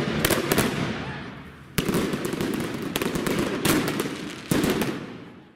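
A Category T1 single-row firework battery firing shot after shot. There are about six sharp bangs, roughly one a second, each trailing off before the next.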